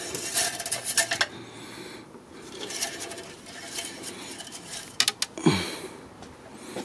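Metal engine-oil dipstick clicking and rattling against its tube as it is slid in and drawn back out to check the oil level after a refill. There are a few sharp clicks, the sharpest about five seconds in.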